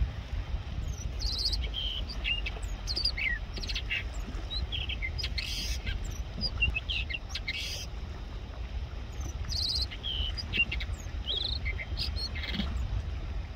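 A perched songbird singing a varied song of short whistled chirps and quick rising and falling notes, delivered in phrases with short pauses, over a low steady rumble.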